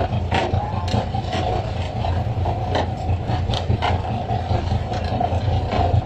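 Fishing boat's engine running steadily, with irregular knocks and slaps as pole-caught skipjack tuna are flung onto the wooden deck.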